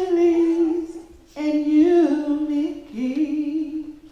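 A single voice singing slow, long-held notes without clear words, in three phrases with short breaths between them.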